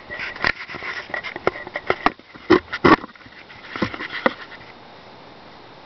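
Irregular clicks and knocks from the SCM Coronet Super 12 portable typewriter being handled while still switched off, the loudest pair about two and a half to three seconds in. The clicking stops a little past halfway.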